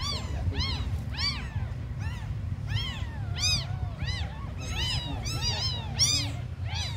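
Several newborn kittens mewing over and over in thin, high calls that rise and fall in pitch, about two a second, with several calling at once about five to six seconds in. A low steady rumble runs underneath.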